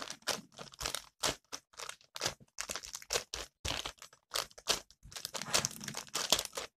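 Clear plastic packaging crinkling in quick, irregular crackles as hands squeeze and release a handmade paper squishy inside the bag, over and over.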